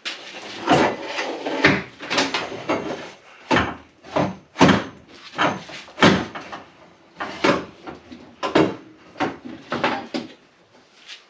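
A roll cage's front strut tube being worked into place through a cut-out in the car's body: a dozen or so irregular knocks and clunks with scraping between them as the tube bumps and rubs against the bodywork.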